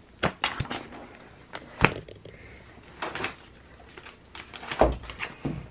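Plastic sheet-protector pages of a sticker binder rustling as they are flipped and handled, with a run of sharp clicks and knocks. The two loudest knocks come about two seconds in and near the end.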